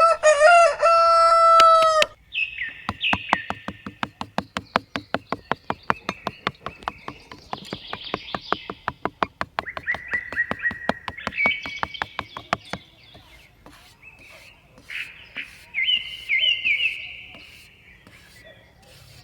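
A rooster crows once, loudly, then small birds chirp over a steady run of sharp clicks, about four a second, that stops about two-thirds of the way through; more chirps follow near the end.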